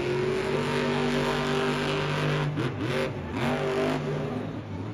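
Earth Shaker monster truck's supercharged V8 running at high revs as the truck powers across the dirt and jumps a mound. It holds a steady note for a couple of seconds, then the revs drop and climb again several times.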